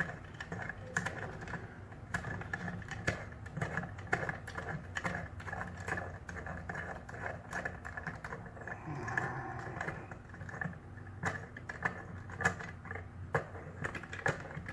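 Irregular small clicks and taps of a metal dimple cam lock being handled and fitted into a small vise, with a faint steady hum underneath.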